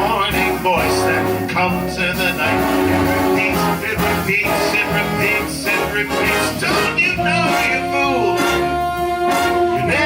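Live big band playing a swing jazz arrangement with the brass section prominent, and two long held horn notes in the last few seconds.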